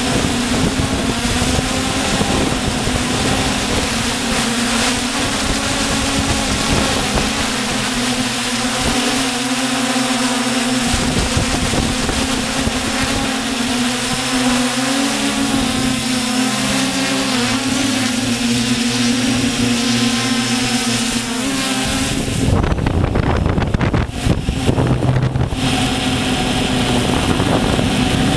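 Multirotor drone's electric motors and propellers, heard from the camera on the craft: a loud, steady buzzing hum whose pitch wavers up and down as the throttle changes. About 22 seconds in, a loud low rushing noise covers it for a few seconds, then the hum returns.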